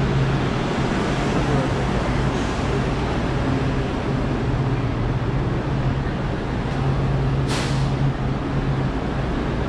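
Steady hum of a Metro light-rail train standing at the platform, over road traffic noise, with a brief hiss about seven and a half seconds in.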